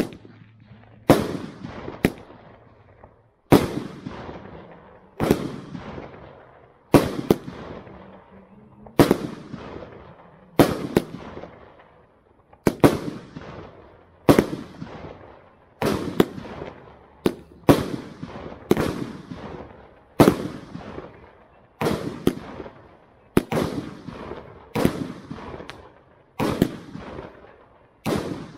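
Firemagic Lion King 80-shot 25 mm firework cake firing shot after shot, about one every one and a half seconds. Each shot is a sharp bang, often followed closely by a second report, with a fading tail after it.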